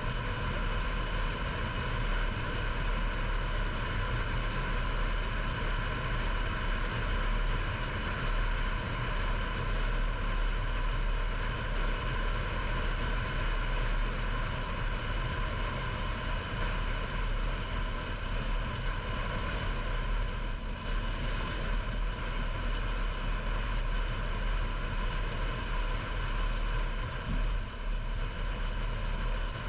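Steady road and engine noise of a moving car, with several steady high-pitched tones running through it.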